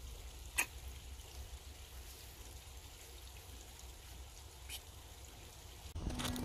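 Faint steady low rumble of background noise with two short clicks, one about half a second in and one near five seconds; music starts just before the end.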